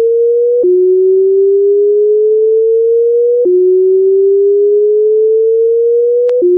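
A steady electronic pure tone slowly gliding up in pitch for about three seconds, then snapping back down with a click and gliding up again. It drops back three times: about half a second in, about three and a half seconds in, and near the end.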